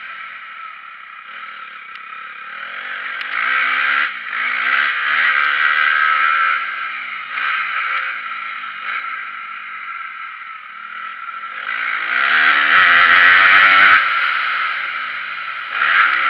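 Dirt bike engine revving up and dropping back again and again as it is ridden around a motocross track, loudest about twelve to fourteen seconds in.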